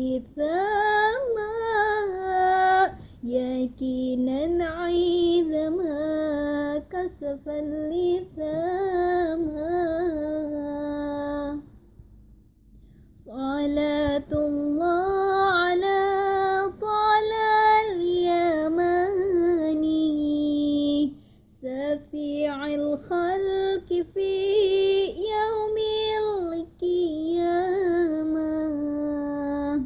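A young woman's solo voice singing a sholawat (Arabic devotional song) unaccompanied, in long, ornamented held phrases with two short pauses about twelve and twenty-one seconds in.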